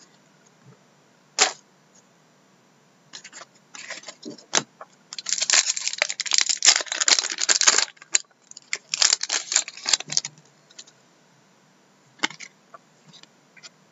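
Foil trading-card pack wrapper being torn open and crinkled by hand, in a dense run of crinkling about five to eight seconds in and again briefly around nine to ten seconds. There is a single sharp snap about a second and a half in, and a few lighter rustles and clicks.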